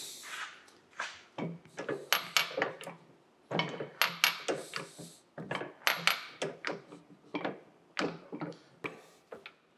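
Hand-wheel arbor press driving a steel punch against a pin in a small winch's roller piece. A run of sharp metallic clicks and taps with a ringing edge, about two or three a second, as the pin is forced out.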